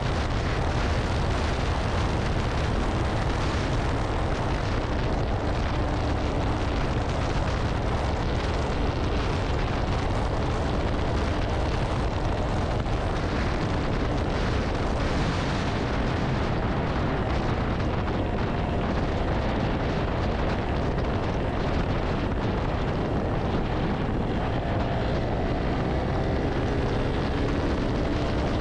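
Wind rushing and buffeting on the microphone at highway speed, with a KTM Duke 200's single-cylinder engine running steadily beneath it.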